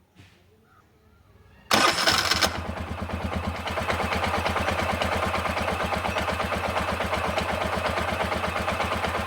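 Bajaj three-wheeler's four-stroke engine started with its freshly re-brushed starter motor: after a brief burst of cranking about two seconds in, it catches and idles steadily with an even pulsing beat.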